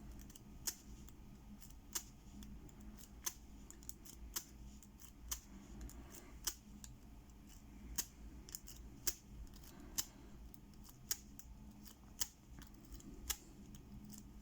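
Half-diamond lock pick working the pin stack of a 50 mm Hero padlock: faint, irregular metallic clicks, about one or two a second, as pins are lifted and set under tension.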